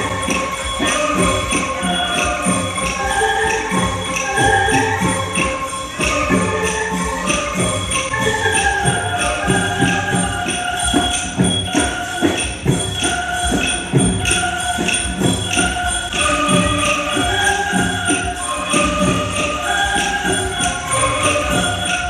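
An angklung ensemble playing a melody, the shaken bamboo tubes giving each short note a rattling tone.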